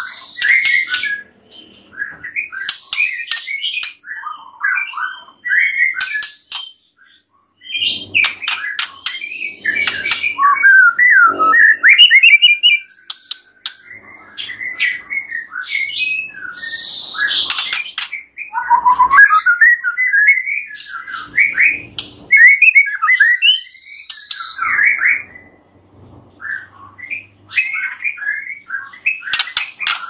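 White-rumped shama (murai batu) singing a fast, varied song of whistled phrases mixed with sharp clicking notes, with a short pause about seven seconds in.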